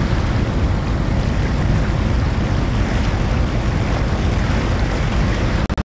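Wind buffeting the microphone and water churning in the wake of a boat under way: a steady, loud, deep rushing noise that cuts off abruptly near the end.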